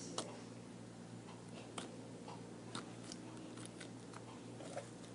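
Homemade glue-and-detergent slime being handled, giving a few faint, sharp sticky clicks spaced about a second apart over a low steady hum.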